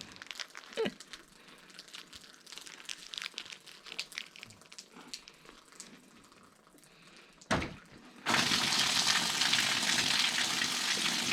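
Rainwater gushing out of a water-filled bulge in a roof after it is cut open with a knife. Faint drips and crackles come first, then a thump, and about eight seconds in a loud, steady pouring starts suddenly.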